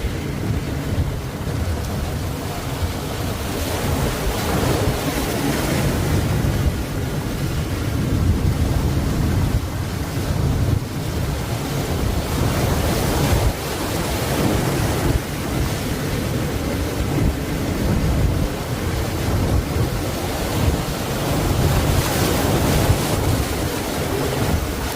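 Ocean waves breaking and washing in: a continuous rush of surf that swells and eases every few seconds, with wind rumbling on the microphone.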